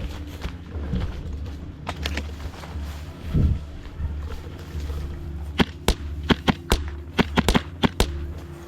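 Airsoft guns firing: a string of about ten sharp shots in quick, uneven succession, beginning a little past halfway.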